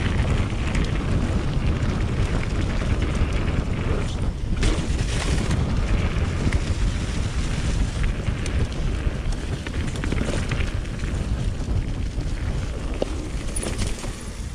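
Wind buffeting the microphone and tyre rumble from a mountain bike riding down a dirt flow trail, a steady heavy rush that falls away near the end.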